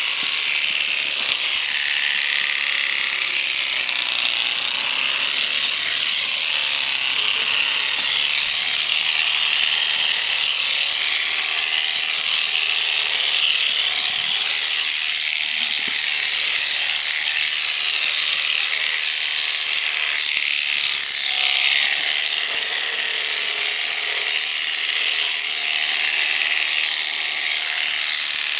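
Electric alpaca shearing handpiece running steadily with a high-pitched buzz, its blades cutting through dense fleece.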